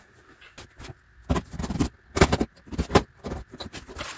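Cardboard box handled and set down on a workbench: a run of scrapes and knocks starting about a second in.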